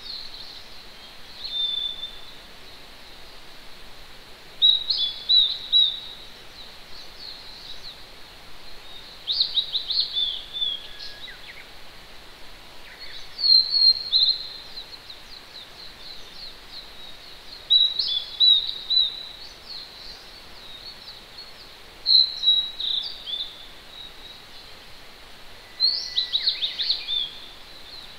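A songbird repeating a short, quick song phrase about every four seconds, over the steady hiss of a distant mountain stream.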